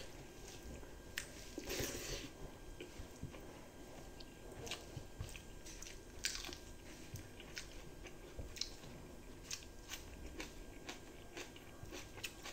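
A man chewing a mouthful of rice with fried egg and dal close to the microphone: soft, irregular clicks and smacks of the mouth, with a brief louder rustle about two seconds in.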